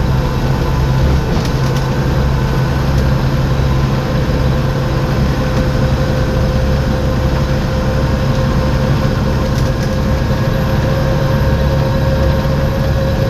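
Volvo B7TL bus's six-cylinder diesel engine running steadily with the turbocharger's whistle, a steady high whine that grows stronger about four seconds in.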